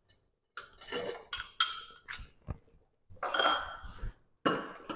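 Metal spoon or ladle clinking and scraping against a stainless-steel pressure cooker pot as peas are added to the gravy and stirred. It comes as a string of short metallic knocks with a longer scrape about three seconds in.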